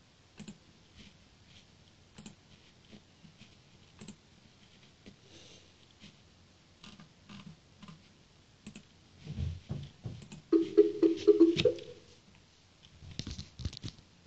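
Light, scattered clicks and taps like typing on a computer keyboard, in a quiet small room. About ten and a half seconds in, a louder held sound with a steady tone lasts about a second and a half.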